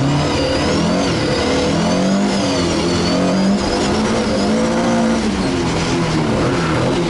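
Ford Escort MkI rally car's engine revving up and down repeatedly as it is driven hard through the gears, heard from inside the cabin. A high whine rises and falls with the revs.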